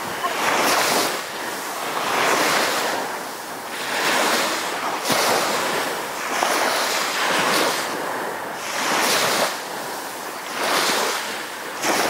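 Small waves washing up onto a sandy beach: a rushing surf noise that swells and fades about every couple of seconds.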